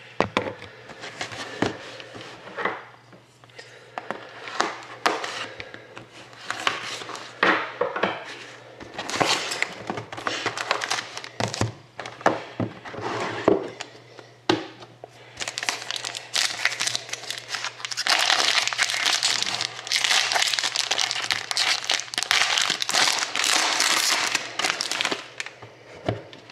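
Plastic wrapping on a box of hockey trading cards being torn open and crumpled: irregular crinkles and crackles that grow denser and louder over the last third.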